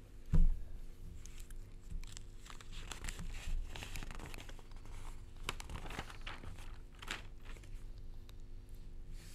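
Newspaper pages rustling and being turned close to a desk microphone, after a single dull thump about half a second in, with a faint steady hum underneath.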